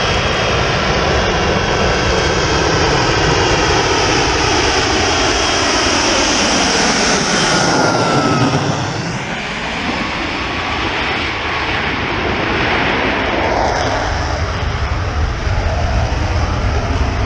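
F-35B Lightning II in STOVL mode, its jet engine and shaft-driven lift fan running together in a slow, low approach: a loud, steady jet roar with a swirling, phasing sweep through it. The roar eases a little about nine seconds in, then builds again.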